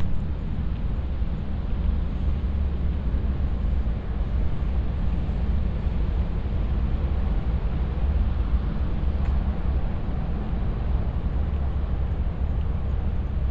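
Steady city traffic noise: a continuous low rumble of road vehicles, with no single event standing out.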